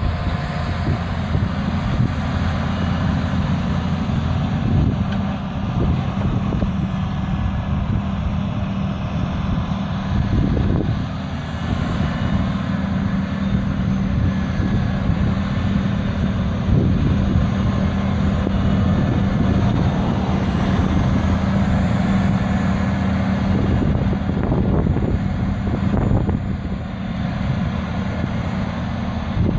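Tractor engine running steadily while pulling a plough.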